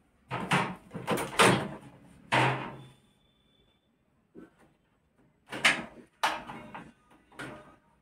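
An LG microwave oven's door being opened and handled: a run of sharp clacks and knocks in the first three seconds, and another run of knocks and rattles about two seconds later.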